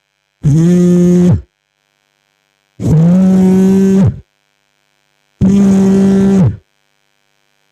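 Beatboxer's vocal imitation of a mobile phone on vibrate: three long, steady, evenly spaced buzzes, with a fourth starting at the end.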